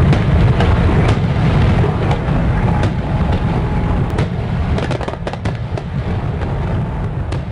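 Fireworks sound effect: a dense low rumble of bursts with scattered sharp crackles, slowly fading.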